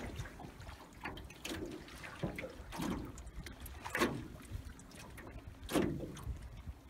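Choppy lake water slapping and splashing against a canoe's hull in irregular strokes, the strongest about four and six seconds in, over a low rumble.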